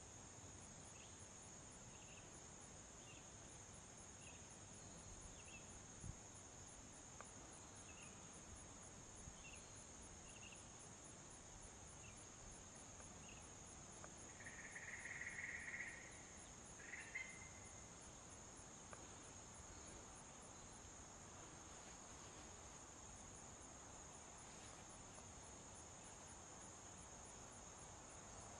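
Faint, steady high-pitched insect trilling, like crickets in grass, with scattered faint short chirps and a brief louder buzzy trill about halfway through.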